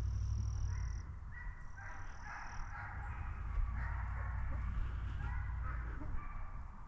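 Pack of deer hounds baying and bawling in the distance while running a deer, a stream of short repeated calls starting about a second in, over a low steady rumble.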